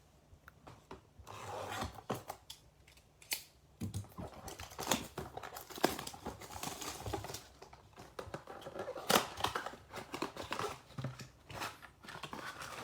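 A cardboard blaster box of baseball cards being opened by hand and its wrapped card packs pulled out: irregular crinkling, tearing and rustling of wrapping and cardboard, with small clicks.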